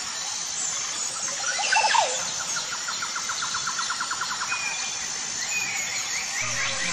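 Nature ambience with birds calling: a loud gliding call about two seconds in, then a rapid trill of about eight notes a second, and high chirps near the end over a steady background hiss.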